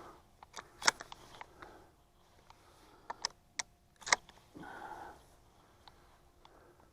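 A few sharp clicks and knocks from handling gear: one about a second in and three more in quick succession around the middle. A short murmur of a man's voice follows.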